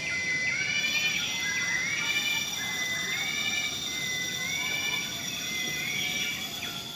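An insect calling in a siren-like pattern: a held whistle-like tone that steps up to a higher note, repeating about once a second. It sounds over a steady high-pitched buzz from other insects.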